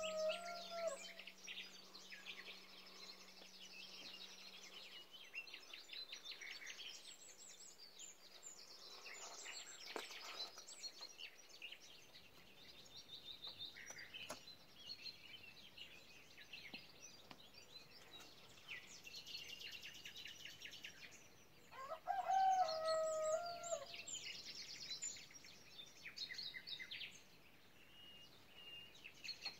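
Small songbirds singing continuously in rapid, high chirps and trills, with a rooster crowing once about three-quarters of the way through as the loudest sound, and the end of another crow at the very start.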